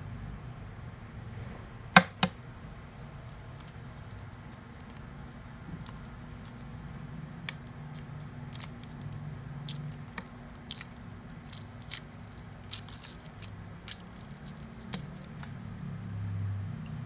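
Hard-boiled egg cracked with two sharp taps, then its shell crackling and snapping off in small pieces as it is peeled by hand.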